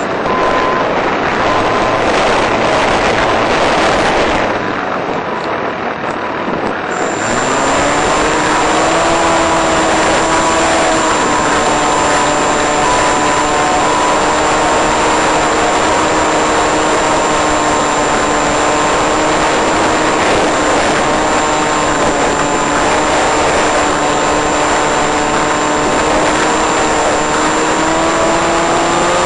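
Electric motor and propeller of a 1.5 m Eagle Wing RC plane, heard through the plane's own audio/video link over a steady hiss. The motor sound drops away about four and a half seconds in. At about seven seconds it spins back up with a rising whine and then holds a steady pitch, climbing again at the very end.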